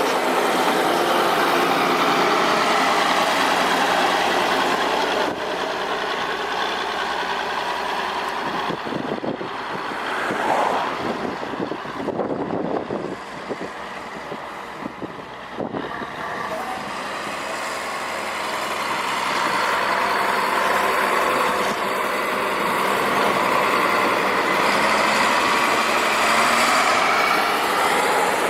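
Diesel engines of road-construction machinery (motor grader and road rollers) running steadily. The sound drops and turns uneven for several seconds in the middle, then builds back up toward the end.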